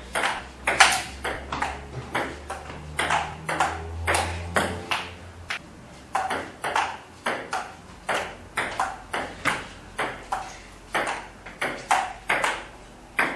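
Table tennis rally: the celluloid ball clicking off the paddles and bouncing on the table in a steady back-and-forth, about two to three sharp hits a second.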